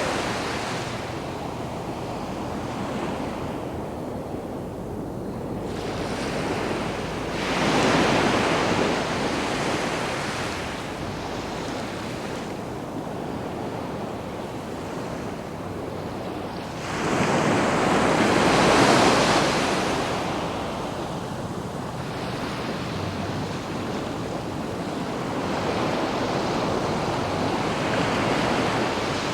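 Sea waves breaking and washing up a sandy beach, a steady wash with two larger breakers swelling up about eight and eighteen seconds in. Some wind is mixed in.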